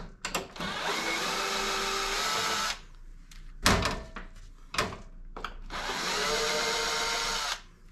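Bosch cordless drill-driver backing screws out of a range hood door's metal hinge. It runs twice for about two seconds each, with a few sharp clicks and knocks in between.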